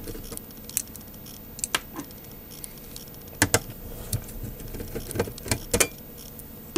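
A Phillips screwdriver undoing the screws of the rubber feet on the sheet-metal base of a rotator controller: scattered small metal clicks and clinks, about eight in all at irregular intervals.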